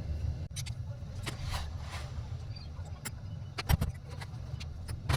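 Scattered metallic clicks and clinks of tools on a window AC fan motor being taken apart to remove its bearings, with a heavier knock a little past halfway, over a steady low hum.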